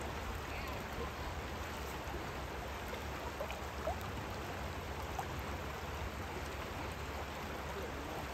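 Steady rush of a fast-flowing river's current, an even wash of moving water with no breaks.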